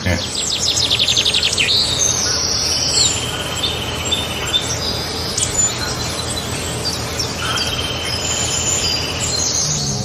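Birds singing and calling: a fast trill of repeated high notes at the start, then many short high whistled notes and held tones, over steady background noise.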